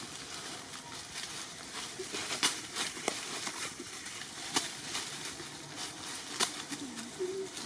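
Dry leaf litter crackling and rustling over a steady hiss, with a few sharp clicks about two seconds apart.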